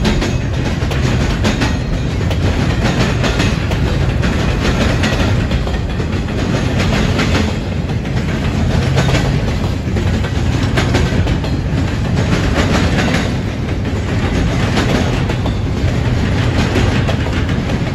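Double-stack container well cars of a CSX intermodal freight train rolling past, with a steady rolling noise and steel wheels clicking in clusters over the rail joints.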